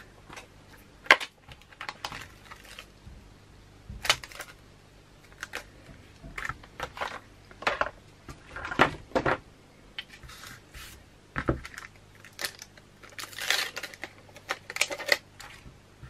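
Craft supplies handled on a tabletop: scattered light clicks and knocks, the sharpest about a second in, with bursts of rustling from a clear plastic photopolymer stamp sheet and an acrylic stamping block being picked up and handled.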